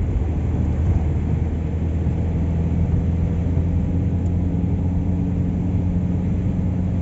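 Steady low rumble of a car driving on a rain-wet road: engine and tyre noise heard from inside the cabin.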